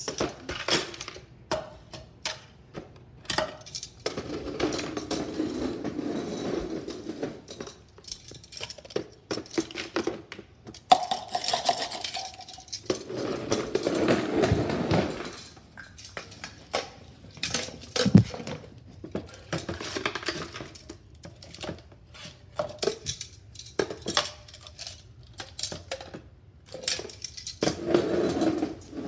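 Scattered clattering and knocking of a toy mini wheelie bin gripped in a metal grabber and tipped into a plastic tub: irregular clicks and rattles of plastic and metal.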